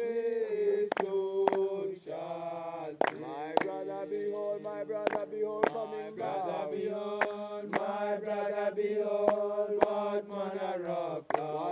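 Voices chanting in long, drawn-out held notes that shift slowly in pitch, with sharp irregular knocks throughout.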